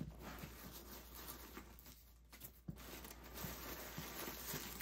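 Faint rustling and light handling noises as hands move tissue-paper stuffing about inside a canvas tote bag.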